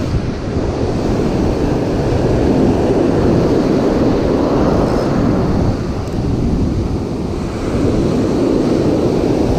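Ocean surf breaking on a beach, with strong wind rumbling on the microphone; the wash swells up twice.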